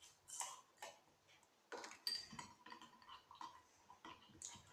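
A spoon stirring a sticky glue-and-borax slime mixture in a glass, with irregular light clinks and scrapes against the glass.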